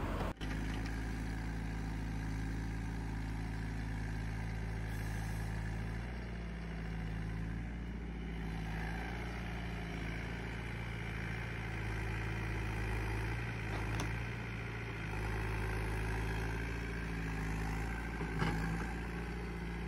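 Volvo ECR88 compact excavator's diesel engine running steadily at half throttle while the machine pulls out and lifts a large pine stump. Two light knocks come through, the louder one near the end.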